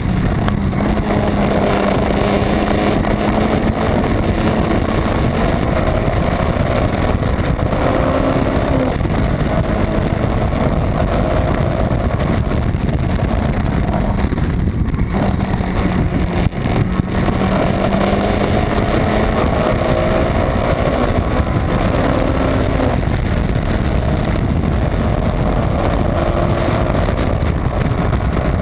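Honda Civic's B18 non-VTEC 1.8-litre four-cylinder engine running hard at racing pace, loud and steady. The engine note climbs and drops several times, with a short dip about sixteen seconds in.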